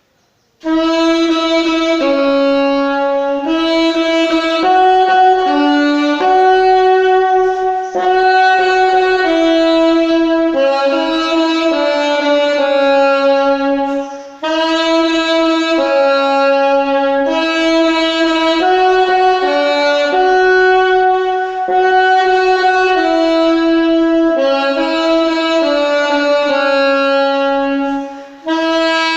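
Unaccompanied alto saxophone playing a slow hymn melody in long held notes, with short breath pauses about halfway through and near the end.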